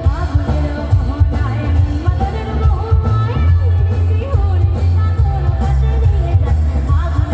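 A song with a singing voice over a heavy, pulsing bass beat, played loud through a PA sound system.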